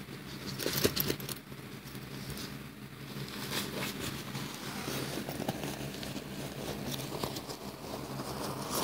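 Thin nylon fabric of a foldable backpack rustling and crinkling as it is handled and stuffed into its own small zippered pocket, in irregular bursts with a louder scuff about a second in. A faint steady hum runs underneath.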